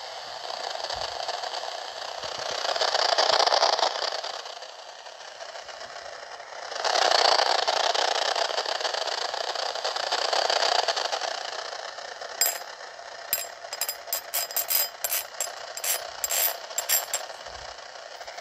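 Yaesu VR-500 receiver tuned to 300 MHz AM, hissing from its speaker with radio-frequency noise given off by a Samsung Galaxy A52 phone; the hiss swells and fades twice. In the last few seconds, a run of irregular sharp clicks.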